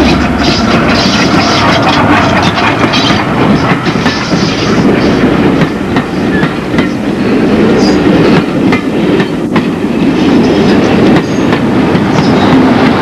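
Class 14 diesel-hydraulic locomotive's Paxman engine running as it passes close by, its low hum fading within the first second or so. Then a rake of passenger coaches rolls past, wheels clattering over the rail joints.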